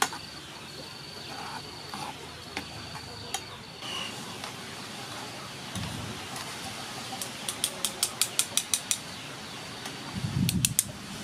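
Metal tongs and a wire mesh strainer clinking against a pan of boiling water as blanched broccoli is lifted out. A quick run of about ten clicks comes about two-thirds of the way through, and a few more come near the end, over a steady low hiss.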